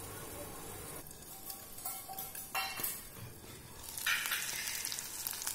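Chicken frying in masala in a covered clay pot, a faint steady sizzle under a stainless steel lid; about four seconds in the lid is lifted and the sizzling comes through suddenly louder.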